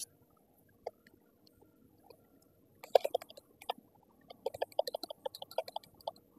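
Faint irregular crackling and ticking from a soldering iron drawing solder wick across flux-covered pads on a phone logic board: a few scattered ticks, then a thick run of crackles from about three to six seconds in.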